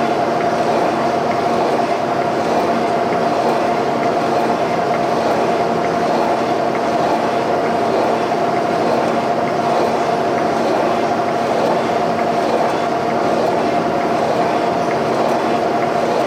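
Portable line-boring bar running under power and cutting a worn pivot bore in a steel suspension frame: a steady, unbroken machine noise with a constant whine.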